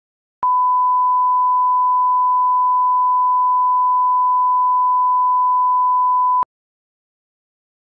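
1 kHz line-up test tone, the steady pure reference tone that goes with colour bars on a broadcast tape. It sounds for about six seconds, switching on and off abruptly with a click at each end.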